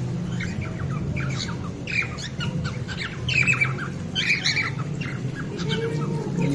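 A colony of cockatiels squawking and chattering, many short harsh calls overlapping, with a steady low hum underneath.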